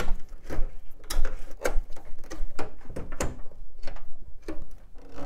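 Cables being unplugged and pulled out of a desktop PC's open metal case: an irregular run of clicks, knocks and rustles as plastic connectors and ribbon cables come free and brush against the chassis.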